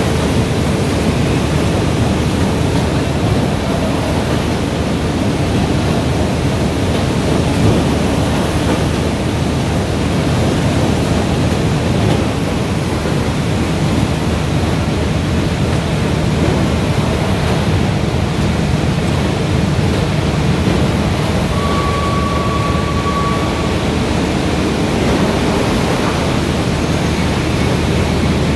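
Bobst Rapidset FFG 1232 NT RS folder-gluer running: a loud, steady mechanical noise of rollers, belts and corrugated boards feeding through the machine. A short steady tone sounds once about three-quarters of the way through.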